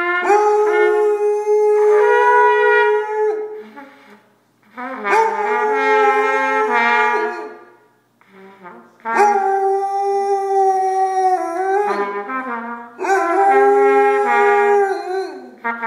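Trumpet playing a slow Christmas tune in phrases of long held notes, with a basset hound howling along.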